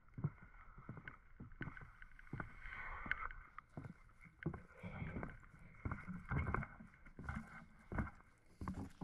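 Footsteps walking on a wooden dock's plank deck, the boards knocking underfoot about twice a second.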